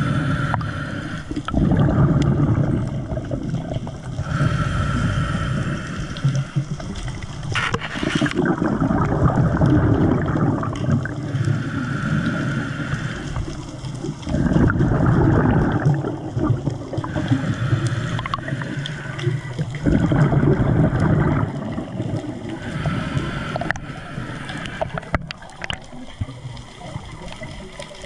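Muffled underwater rushing and gurgling of water as a diver moves, heard through a camera's waterproof housing. It comes in uneven surges every few seconds, with one sharp knock about eight seconds in.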